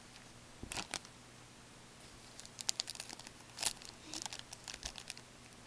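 Foil wrapper of a 2012-13 Upper Deck Artifacts hockey card pack crinkling and tearing as it is opened by hand. There are a couple of short crinkles about a second in, then a longer run of crinkling from about halfway through.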